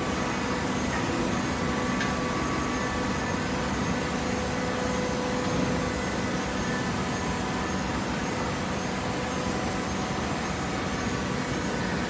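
Horizontal hydraulic baler running: a steady mechanical drone with a few faint steady hum tones over it.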